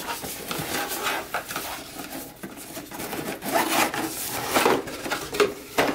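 Cardboard packaging being handled: an inner box slid out of its cardboard sleeve, with card rubbing and scraping on card and a few short knocks, the sharpest near the end.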